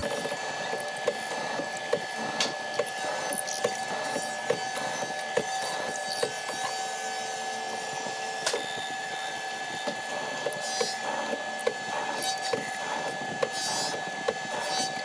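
A woodworking machine cutting a wooden board: the motor runs with a steady high whine, overlaid by sharp clicks a few times a second as the cutter bites the wood, with one louder crack about eight and a half seconds in.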